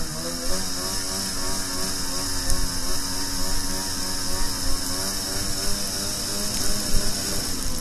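Snowmobile engine running steadily, its pitch wavering slightly up and down, with a steady high hiss over it.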